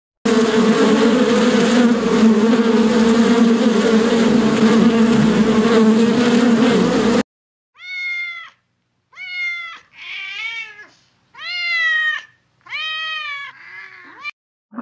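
A steady, loud buzzing drone for about seven seconds that cuts off suddenly, then a domestic cat meowing about six times in a row, each meow rising and falling in pitch.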